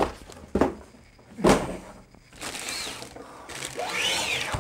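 Unpacking noise. Two dull knocks in the first second and a half come from the cardboard box and its contents being handled. Through the second half a plastic wrapping bag rustles and crinkles around a blender part.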